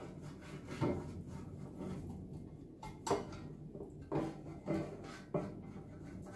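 Pastry brush spreading melted butter over the inside of a loaf pan: soft brushing scrapes with a few light, irregular knocks as the brush is dipped and worked.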